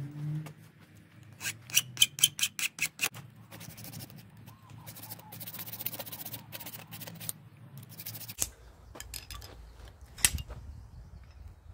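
Hand file scraping a small steel part clamped in a bench vise: a run of quick, loud strokes, then a stretch of steadier filing. A single sharp knock near the end.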